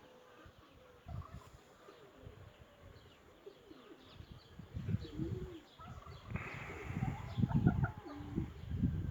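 Domestic pigeons cooing over and over, the calls growing louder and more frequent in the second half, with small birds chirping faintly above them. There is a short burst of rustling noise about six seconds in.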